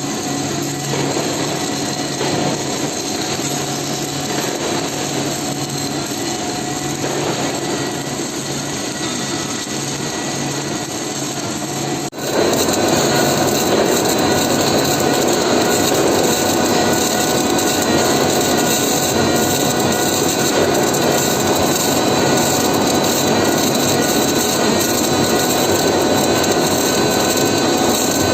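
Automatic narrow-groove circumferential seam welding machine at work: a steady mechanical hum and hiss with several steady tones. About twelve seconds in the sound jumps abruptly to a louder, fuller level and stays there.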